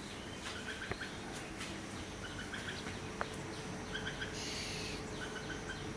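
Birds singing in the morning: short, bright chirps given in quick little clusters, repeating every second or so. A brief hiss cuts in about four and a half seconds in.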